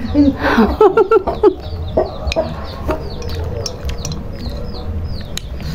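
Chickens clucking, with a run of short high chirps repeating a few times a second and a few sharp clicks.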